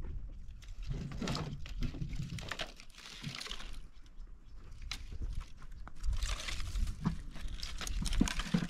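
Dry branches and twigs rattling, scraping and snapping against each other as they are picked up and gathered into an armful of firewood, in uneven bursts of crackles and clicks.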